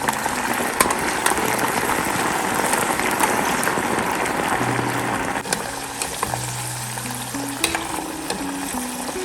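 White yam pieces sizzling steadily as they fry in hot oil, with a few light clicks. Soft background music plays under it.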